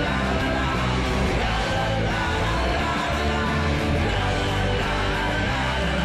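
Live rock band playing a song with a sung vocal over the band.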